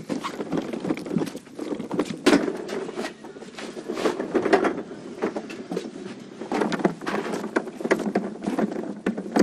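Irregular knocking and clattering of PA gear, such as speaker stands and boxes, being handled and carried.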